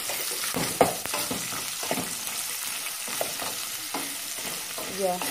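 Boiled meat sizzling as it fries in cooking oil in a stainless steel pot, with a steady hiss. A utensil stirring it scrapes and knocks against the pot a few times, the loudest knock about a second in.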